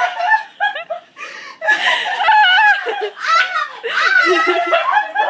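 Women laughing and squealing with delight, high-pitched voices that waver up and down. They are loudest from about two seconds in.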